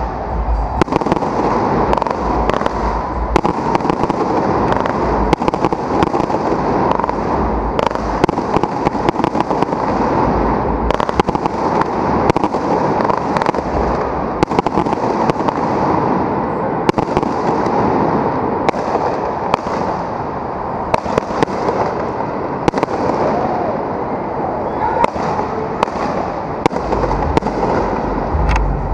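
Aerial fireworks launched from street level, going off in a rapid, unbroken stream of crackles and pops with many sharp bangs as shells burst overhead.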